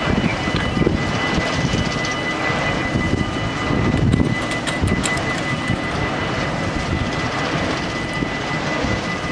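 Dutch level-crossing warning bells ringing continuously as the barriers lower, over a steady low rumble.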